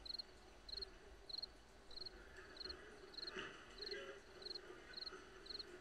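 A cricket chirping faintly, with short, evenly spaced chirps a little under twice a second.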